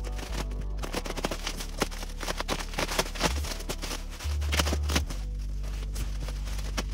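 Bubble wrap crinkling and crackling as it is pulled and handled by hand, densest in the first five seconds and thinning out after. Background music with a deep, steady bass runs underneath.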